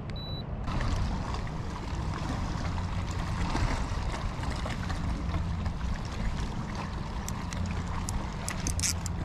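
Water sloshing and trickling against a kayak hull over a steady low rumble of wind on the microphone, with a few sharp ticks near the end.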